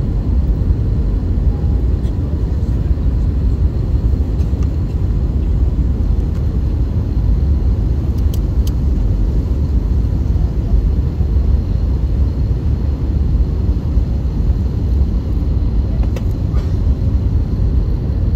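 Steady cabin noise of an Airbus A321neo airliner descending on approach, heard from a window seat over the wing: a deep, even rush of airflow and engine noise. A few faint clicks come about halfway through and again near the end.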